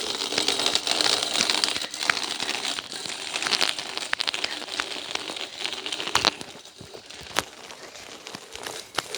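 Footsteps running over crunchy ground, a rough crackling and crunching noise with many scattered clicks that grows fainter about six seconds in.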